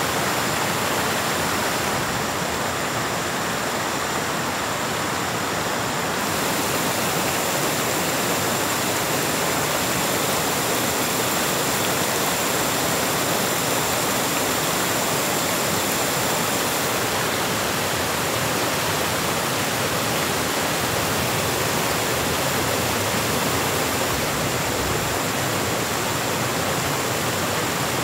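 Steady rushing of water: an even, unbroken hiss that holds at one level with no breaks or distinct events.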